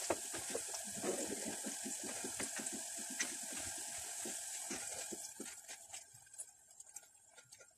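Diced onions sizzling in hot oil, with a quick run of knife taps on a plastic cutting board as a tomato is sliced; both drop away about five seconds in.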